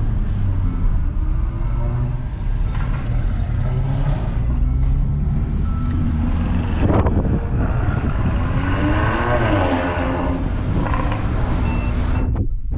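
Car engines and exhausts running, their pitch rising and falling as they rev. The sound cuts off abruptly shortly before the end.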